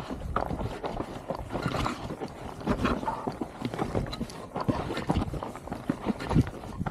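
Irregular footsteps, scuffs and knocks on rough ground as people struggle to push and lift heavy off-road electric scooters by hand.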